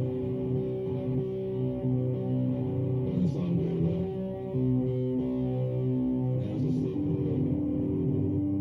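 Music played through a wooden floor-standing hi-fi loudspeaker: slow, sustained, mostly low notes that change every second or so, with a brighter attack about three seconds in and again past six seconds.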